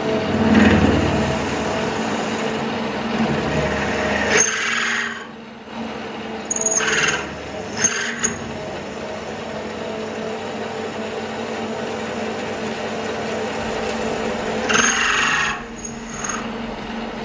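Bernardo Profi 550 WQV metal lathe running under cut while turning a steel bar: a steady hum of several held tones from the machine, with short louder scraping spells of the cutting tool about four seconds in, twice around seven to eight seconds, and again near the end.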